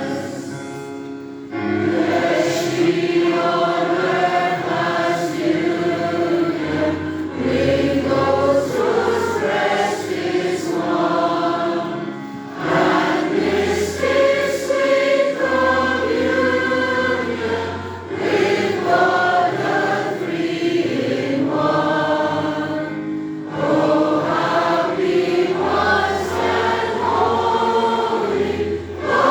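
A congregation singing a hymn together over a steady instrumental accompaniment, in sung lines of about five seconds with short breaks between them.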